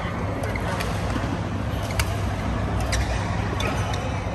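Sports hall ambience: a steady low hum with a scattering of sharp clicks of badminton rackets striking shuttlecocks, the sharpest about two seconds in.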